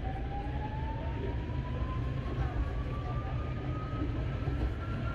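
Prague tram running and gaining speed: a steady low rumble with a single whine rising slowly in pitch, typical of the electric traction drive as the tram accelerates.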